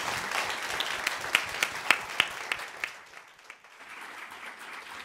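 Audience applauding, full and thick with claps at first, dying down after about three seconds to a thinner patter.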